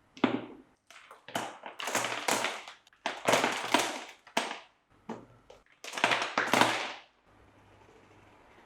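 Hands handling packaging: a series of irregular rustling, scraping and tapping bursts over about seven seconds, ending abruptly.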